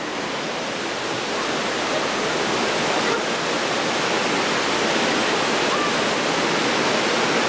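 Steady rushing of running water, an even hiss-like roar that swells slightly over the few seconds.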